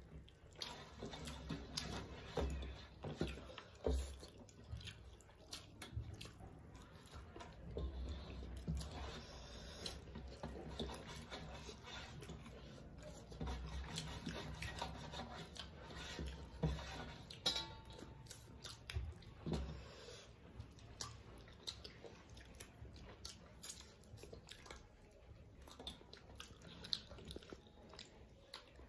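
Two people eating rice and curry with their hands: chewing and mouth noises, with fingers scraping and gathering rice on metal plates, making irregular small clicks.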